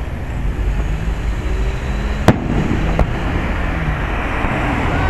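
Aerial fireworks shells bursting: two sharp bangs a little over two seconds in and again under a second later, the first the loudest, over a steady low rumble of the ongoing display.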